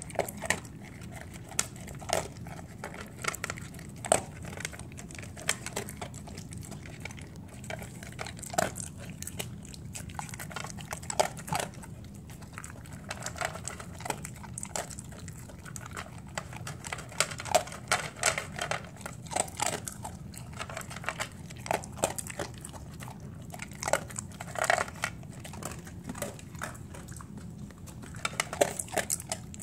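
A dog eating dry kibble from a metal bowl: irregular crunches and clicks coming in short clusters.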